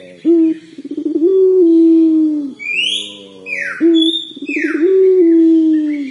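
Young puter pelung, a domestic collared dove bred for its long coo, practising its long call twice: a short note, a quick rolling warble, then one long low note held for over a second that sinks slightly in pitch. Other birds give high falling and rising whistles in the background.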